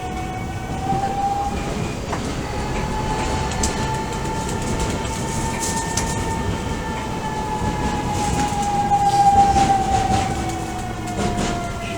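Odakyu 1000 series electric train running, heard from inside the car. A whine from its Mitsubishi GTO-VVVF traction equipment rises slowly in pitch, then falls away over the second half, over a steady rumble with occasional rail-joint clicks.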